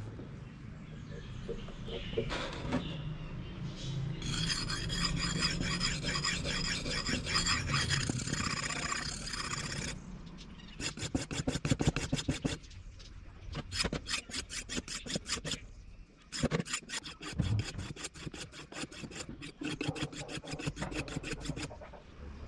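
Rapid back-and-forth rasping strokes of a wooden knife-handle block being worked against an abrasive surface. The strokes come in several runs with short pauses between them.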